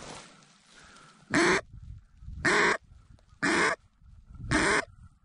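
Mallard duck call blown as single loud hen quacks, four of them about a second apart, to call in ducks.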